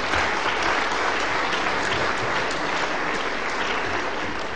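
Audience applauding, a dense patter of many hands clapping that begins to fade near the end.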